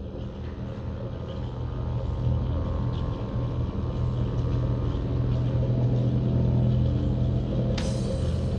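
A low, steady rumbling drone that grows louder, with a sudden hissing hit near the end.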